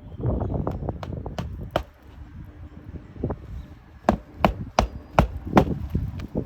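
A hammer striking on an asphalt-shingle roof. The first couple of seconds are rough scraping and knocks, then comes a run of about six sharp blows, two or three a second, near the end.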